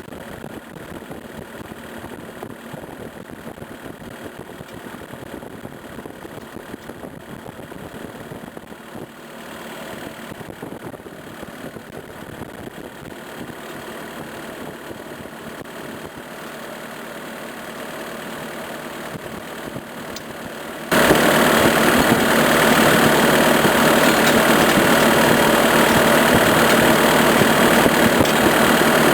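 Skid steer engine running steadily. About three-quarters of the way through it abruptly becomes much louder and stays loud.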